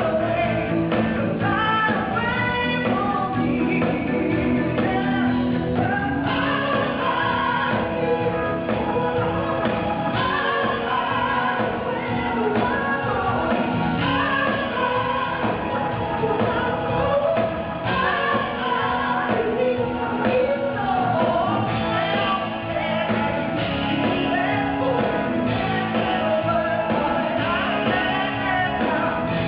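Live pop-rock band performance with a woman singing the lead vocal over the full band.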